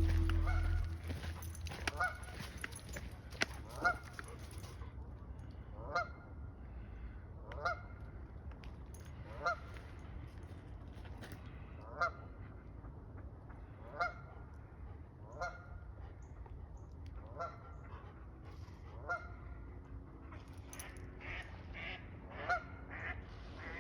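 A goose honking over and over, one short rising call about every two seconds, with the calls coming closer together near the end.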